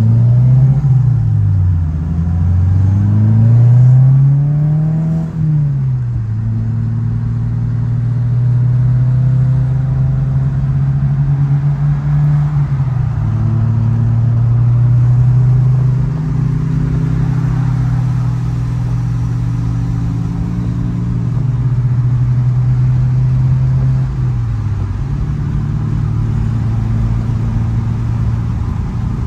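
2022 Subaru WRX's turbocharged 2.4-litre flat-four through a MAPerformance aftermarket exhaust, heard from inside the cabin. The revs climb for a few seconds under acceleration and drop with a shift about five seconds in. It then settles into a steady cruising note, with small dips and rises in revs.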